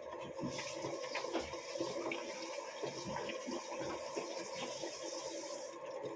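Kitchen tap turned on and left running for about five seconds, then turned off.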